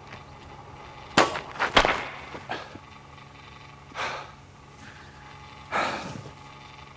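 Baseball bat strikes: two loud, sharp hits a little over a second in, about half a second apart, followed by a few fainter knocks, then two longer noisy rushes, one near the middle and one near the end.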